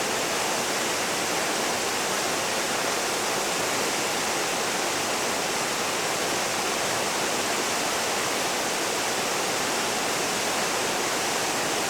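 Water falling down a 14 m waterfall: a steady, even rush of water that does not change.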